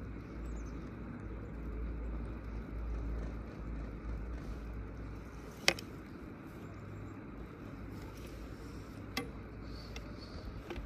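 Steady low rumble of a ride on a CTEC chairlift, with one sharp click a little past halfway and two fainter clicks near the end.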